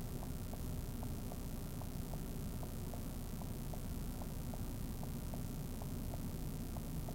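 A steady low rumble with a light, regular ticking about three times a second, alternating slightly in pitch, like a vehicle's hazard-flasher relay clicking over an idling engine.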